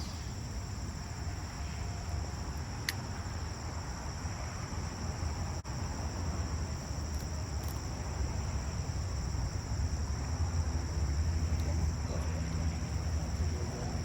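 Insects droning steadily in a high, even chorus over a low outdoor rumble, with a few faint clicks.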